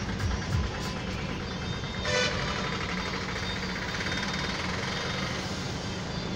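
Steady seafront road traffic noise mixed with breaking waves, with a short vehicle horn toot about two seconds in.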